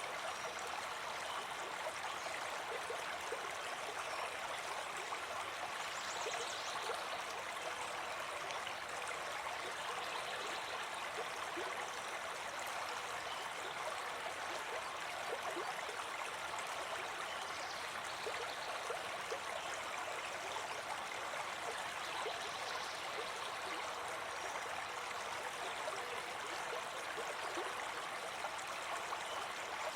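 Small brook babbling steadily over stones, an even rush of running water.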